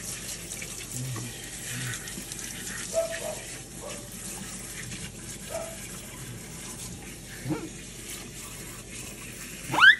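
Kitchen sink pull-down sprayer running a steady spray of water over a wet capuchin monkey's fur. A short, high, rising squeak comes just before the end.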